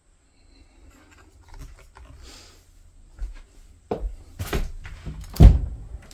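A few faint clicks and rustles, then several sharp knocks and one heavy thump a little past five seconds in: handling and movement noise in a small room.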